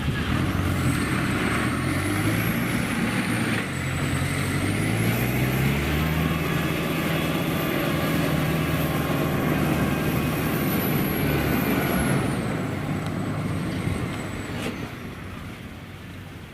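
Kubota DC-93 rice combine harvester's diesel engine running, its pitch rising about four seconds in, holding, then dropping away near the end. A thin high whine rises and falls with the engine.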